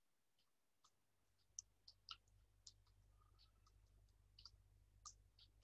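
Faint computer keyboard typing: soft, irregular key clicks, a few per second, over near silence, with a faint low hum coming in about a second in.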